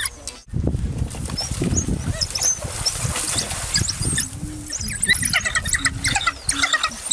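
African wild dogs twittering: many short, high-pitched squeaking chirps from the pack, over a low rustling noise. The sound cuts out briefly about half a second in.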